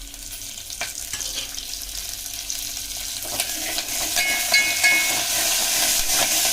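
Tempering of onion, curry leaves, garlic, cumin and mustard seeds sizzling in hot oil, getting louder about three seconds in, with a few clicks near the start.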